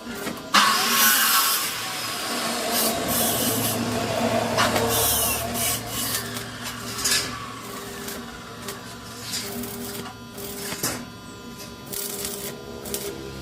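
Metalworking tool noise: a loud hissing run starts suddenly about half a second in and lasts about four seconds, then gives way to quieter scraping and scattered sharp clicks.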